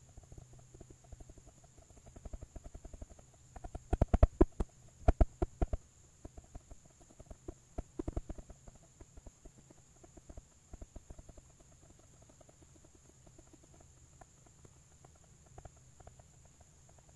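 Rapid, irregular knocking in short clusters, loudest about four to six seconds in, with smaller runs around eight and eleven seconds and only scattered knocks after, over a steady faint high-pitched hiss.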